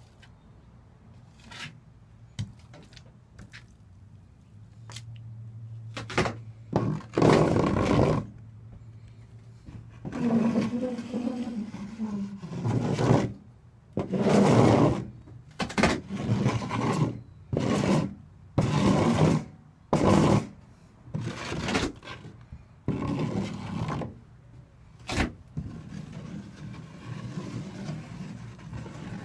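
Trowel scraping and spreading flooring adhesive across a countertop for vinyl tile, in a series of about a dozen strokes roughly a second apart, starting about six seconds in, close to the microphone.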